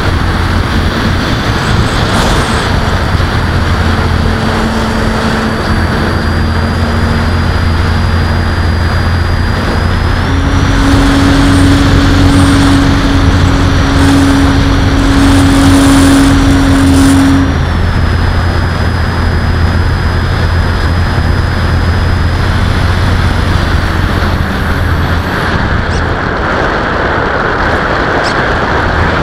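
Onboard sound of a Parkzone Sport Cub RC airplane in flight: its electric motor and propeller run with a steady thin whine under heavy wind rush. About ten seconds in, the motor speeds up, higher in pitch and louder, for around seven seconds, then settles back. Near the end the whine fades out, leaving mostly wind.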